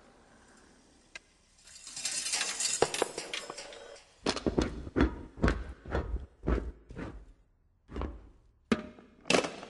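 Car parts from a Honda Accord knocking and clattering into one another on a wooden floor in a chain reaction. A scraping rattle lasts a couple of seconds, then a run of sharp knocks with dull thumps follows at about two a second.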